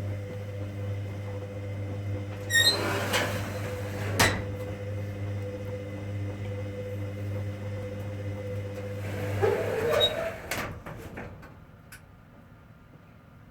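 Hoover Dynamic Next washing machine in the main wash of a 90°C cotton cycle. The drum motor hums steadily, with a few sharp clicks and knocks from the tumbling drum. The motor stops about ten seconds in and the machine goes quieter, a pause in the wash rhythm.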